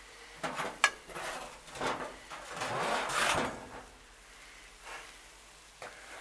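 Handling noises: a few sharp clicks early on, then a rustling hiss lasting about a second, as a loaded serving plate is moved about over the grill.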